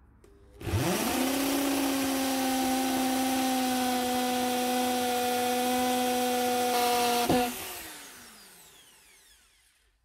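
Power drill fitted with a hole saw, cutting a hole through a van's floor. The motor spins up about a second in, runs at a steady pitch for about six seconds, then is released and winds down.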